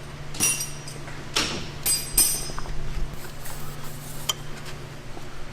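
Metal hand tools clinking and rattling against each other: a few sharp, ringing metallic clinks about half a second, a second and a half, and two seconds in, then lighter taps, over a steady low hum.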